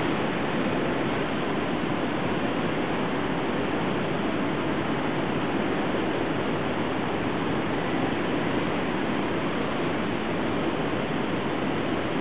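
Airbus A380's four jet engines running at low taxi thrust, a steady noise with no change in level.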